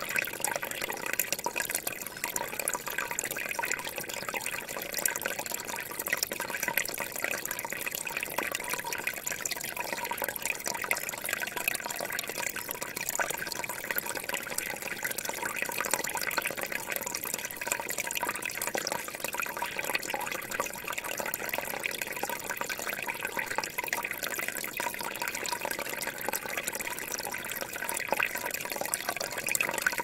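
Small forest stream running steadily, a continuous rush of water with many fine splashes and trickles.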